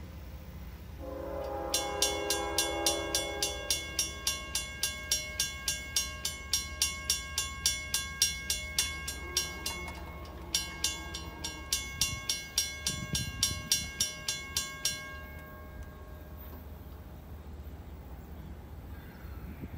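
Western-Cullen-Hayes mechanical crossing bell on a 1970s/80s signal setup, ringing with sharp strikes at about three a second. It breaks off briefly about halfway and stops about three-quarters through; this is the setup's dying bell, the other bell being dead. A brief steady tone sounds under the first strikes.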